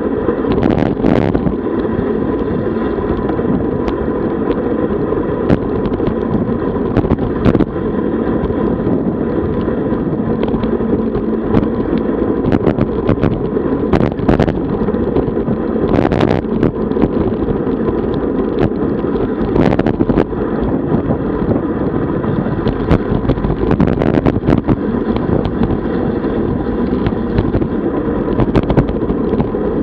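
Wind rushing over the microphone of a camera riding along on a road bike, mixed with tyre and road noise, under a faint steady high tone. Sharp clicks and knocks come at irregular moments.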